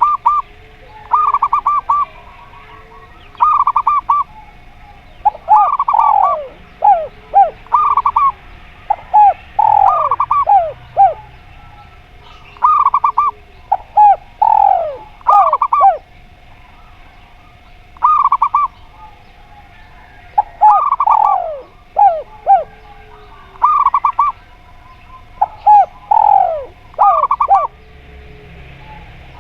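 Zebra dove and spotted dove cooing in alternating bouts every second or two: short runs of rapid stuttering coos and series of falling coos. A faint steady tone hums underneath.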